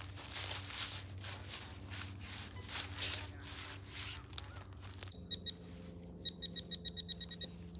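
Crunching of dry leaf litter and soil under a digging tool for about five seconds, then a Fisher F-Pulse pinpointer beeping: two short beeps, then a fast run of about nine beeps a second as the probe closes in on the buried metal target.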